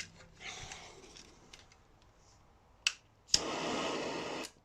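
An aerosol can of WD-40 sprayed in one steady hiss lasting about a second, starting with a click of the nozzle and cutting off sharply, after a separate click a moment before.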